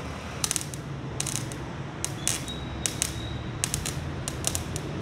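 MIG welder tack-welding exhaust pipe: about seven short bursts of crackling arc, each a fraction of a second long and spaced irregularly, over a low steady hum.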